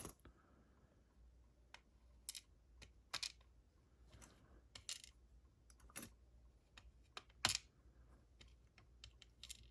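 Light, irregular metallic clicks and taps, a dozen or so, from small parts of a disassembled Corbin Master Ring lock cylinder being handled with tools as its core is emptied of pins.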